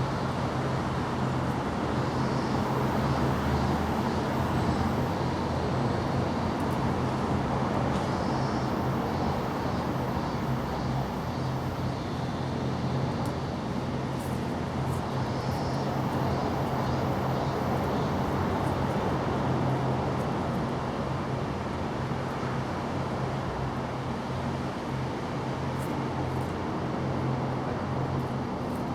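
Steady low hum over a constant background noise, unchanging throughout.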